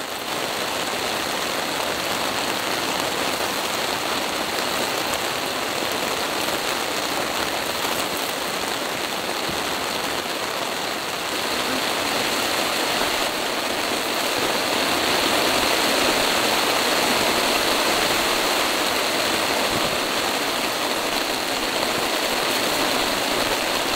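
Rain falling steadily, a dense even hiss that grows a little louder about halfway through.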